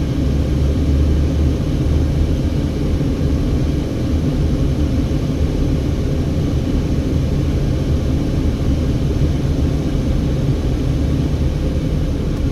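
Steady low road and engine noise inside a car cabin while driving slowly, an even rumble with a few constant low tones and no changes.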